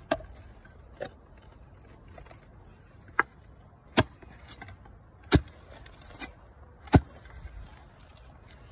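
Hand earth auger with steel spiral blades being worked into red clay soil. It gives about seven sharp knocks and clicks at uneven intervals, with quiet scraping between them; the loudest knocks come near the end.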